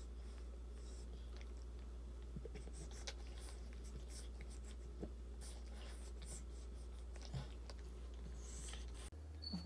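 Boston Terrier dam licking and cleaning her newborn puppy: irregular soft wet clicks and smacks over a steady low hum.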